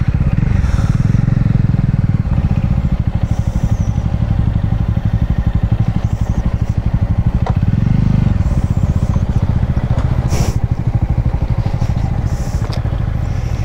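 Yamaha MT-15's single-cylinder engine running steadily at low revs in a low gear as the motorcycle creeps down a rough stony track. A few sharp clacks of stones and rattles cut in, the loudest about ten seconds in.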